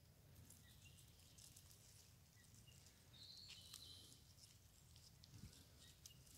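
Near silence: faint outdoor ambience with a few faint, short, high bird chirps, one held a little longer about halfway through.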